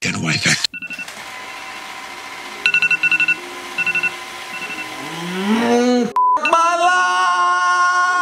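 Short electronic beeps in a few quick groups, then a long drawn-out yawning groan that rises in pitch and is held for a couple of seconds.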